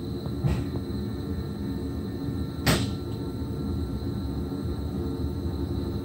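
Cab of an SGMm Sprinter electric multiple unit pulling away slowly: a low running rumble with a steady high whine, and two sharp knocks, the second louder, about half a second and just under three seconds in.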